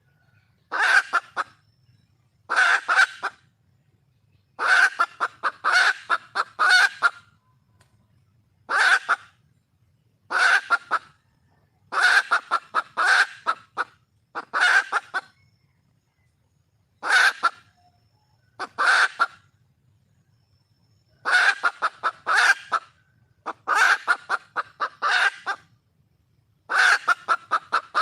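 Red junglefowl hen calling for a mate: about sixteen short runs of rapid clucks, one every second or two.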